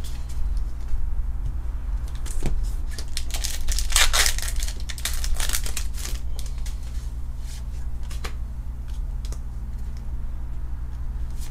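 Foil trading-card booster pack being torn open and its wrapper crinkled, loudest from about three to six seconds in, with light clicks of cards being handled over a steady low hum.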